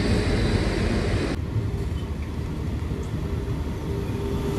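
Rumble and wheel noise of a moving passenger train, heard at an open coach door, with another train passing close by on the next track. The high hiss drops away abruptly about a second and a half in, while the low rumble carries on.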